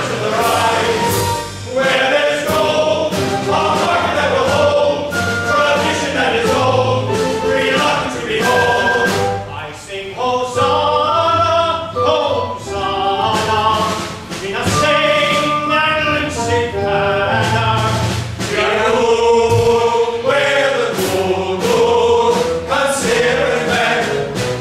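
Male chorus singing a musical-theatre number live on stage, sustained sung phrases with musical accompaniment underneath.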